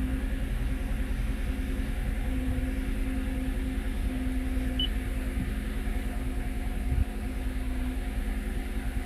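Toyota Avalon V6 engine idling just after start-up, a steady low hum. It idles rough because a cylinder is misfiring, and the engine vibrates.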